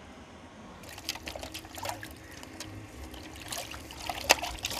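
Water sloshing and splashing in a metal bowl as a hand swirls snakehead fish in salted wash water to rinse off their slime. There is a sharper splash about four seconds in.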